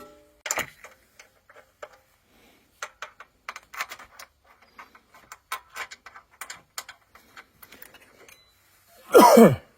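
Light, irregular taps and clicks as a sump cover is tapped and worked into place on a Honda GX200 crankcase over a new gasket. About nine seconds in comes one loud, short sound that slides down in pitch.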